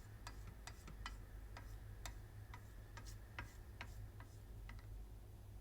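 Faint light ticks, about two a second, over a low steady hum.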